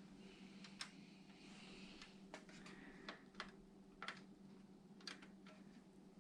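Faint, scattered clicks and light handling noises of computer parts and cables being fitted, about six sharp ticks over a steady low hum.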